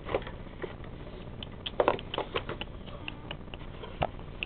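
Hands opening a cardboard product box: a run of light, irregular clicks and taps of cardboard being handled, busiest about two seconds in.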